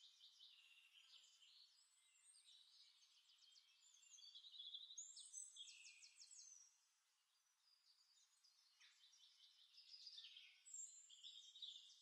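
Faint bird calls: many high chirps, rapid trills and short whistled glides overlapping, with a brief lull about seven seconds in.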